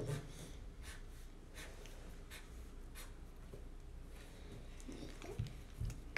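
Pen or marker drawing on paper: a series of short faint strokes under a second apart, then two soft low thumps near the end.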